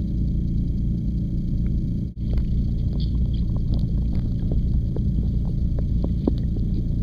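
Muffled underwater noise picked up through a waterproof camcorder's housing: a steady low rumble, with scattered small clicks and ticks after a brief dropout about two seconds in.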